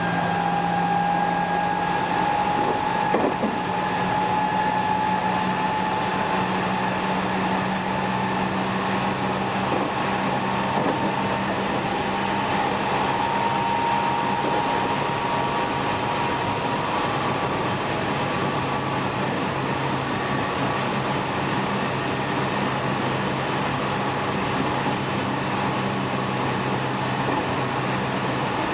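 Running sound of a JR West 207 series electric multiple unit motor car with Toshiba GTO-VVVF traction. The train runs at speed with a steady low rumble, and a motor whine rises slowly in pitch through the first half before fading out a little past the middle.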